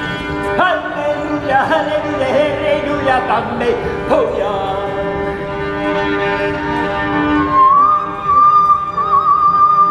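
Live music: a sustained drone of held notes with a voice or bowed line sliding between pitches, then a high note held with vibrato that enters a little before the end.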